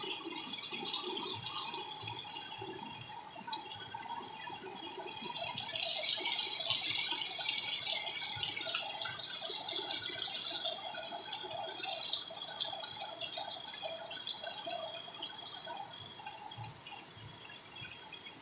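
Heavy rain pouring on garden plants and a tiled courtyard floor, an even hiss of falling water with small drips and splashes. It grows louder for a while in the middle, then eases near the end.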